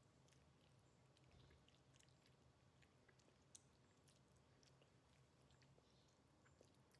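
Near silence: room tone with faint, scattered small clicks.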